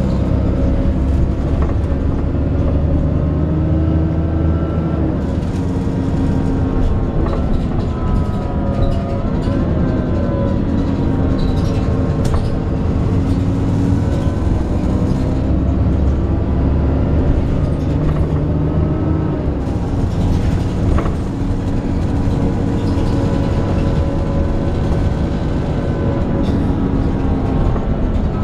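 Alexander Dennis Enviro 400 double-decker bus on a Trident 2 chassis running, with a groaning noise: several steady tones that rise and fall together as it changes speed, and a few sharp rattles.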